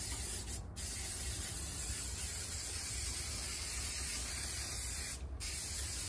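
Aerosol can of spray adhesive spraying in a steady hiss. It breaks off briefly twice, once under a second in and once near the end.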